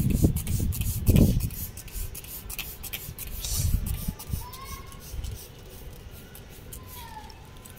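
Hand trigger spray bottle squirting repeatedly in short hissy bursts onto leaves. A low rumble swells about a second in and again around the middle.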